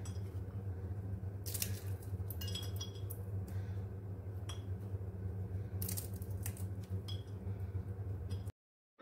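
Walnut kernels being broken by hand, the pieces dropping and clicking onto a china plate in scattered sharp clicks, over a steady low hum. The sound cuts off about eight and a half seconds in.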